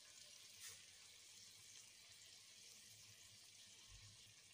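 Near silence: a faint steady hiss, with one soft tick less than a second in.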